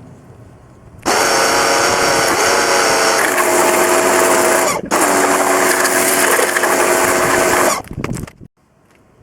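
Pressure washer running in two bursts: a motor and pump whine with a loud spray hiss. It starts about a second in, cuts out briefly near five seconds, then runs again and stops near eight seconds.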